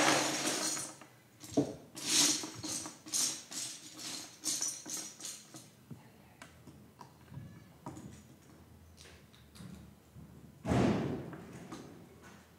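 Plastic Lego bricks tipped out of a plastic tub, clattering onto a pile, then hands sorting through the loose bricks with scattered clicks that thin out. Another brief clatter of bricks comes about eleven seconds in.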